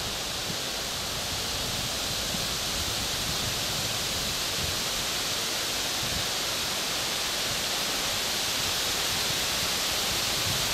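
A steady, even outdoor hiss with faint low rumbles now and then; no distinct events.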